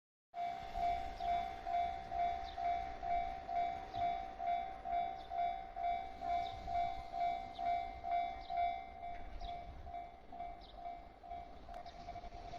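Japanese railway level-crossing warning bell ringing, an electronic ding repeating about twice a second; the pulses grow less distinct in the last few seconds.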